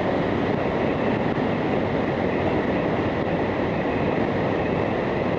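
Steady rush of wind and road noise from a 2009 Harley-Davidson Fat Boy cruising at highway speed, with its engine under it, picked up by a helmet-mounted camera.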